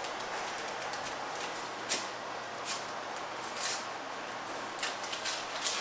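Tissue paper and a gift bag rustling in a handful of short crinkles as a present is unpacked by hand, the loudest about two seconds in, over a steady background hiss.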